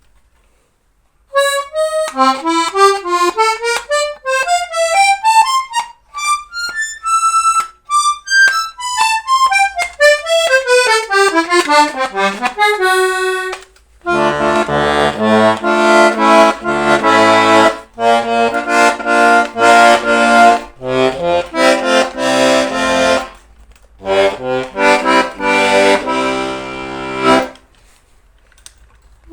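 Hohner Wiener diatonic button accordion in C/F: single treble notes played in runs up and down the scale, then full chords with bass notes in short bursts, stopping shortly before the end.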